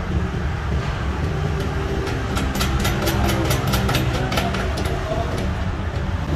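Steady low machine hum of a running workshop motor, with a quick run of light clicks from about two and a half to four and a half seconds in as a nut and washer are worked onto the compressor's mounting bolt by hand.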